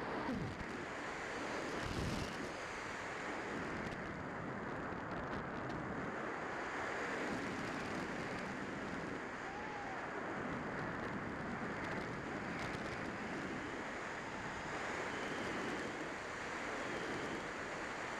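Steady rushing airflow buffeting the onboard camera's microphone on a Multiplex Heron electric RC glider in flight, with no motor tone.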